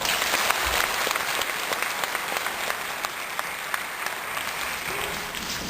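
An audience applauding, with many hands clapping steadily and easing off near the end.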